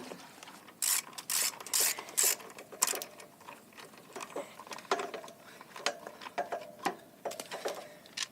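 Ratchet wrench at work: four quick ratcheting strokes about a second in, followed by lighter clicks and metal taps as fasteners and parts are worked loose.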